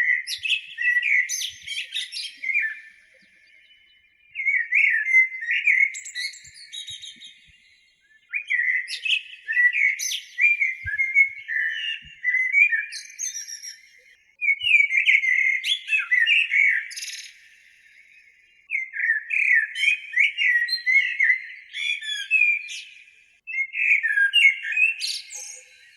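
A songbird singing in about six phrases of quick chirps and warbled notes, each a few seconds long with short pauses between them.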